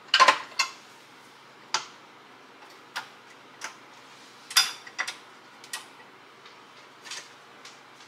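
A spatula scraping and knocking against a stainless steel stand-mixer bowl while batter is mixed by hand: irregular sharp clicks and taps about once a second, the loudest just at the start.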